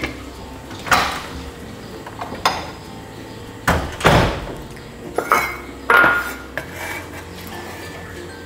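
Irregular knocks and clinks of kitchen utensils against cookware, about one every second, some with a brief metallic ring.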